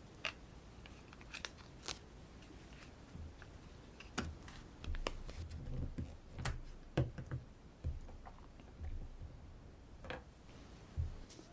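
Makeup tools and containers handled close to the microphone: irregular small clicks and taps with a few soft thuds, busiest in the middle.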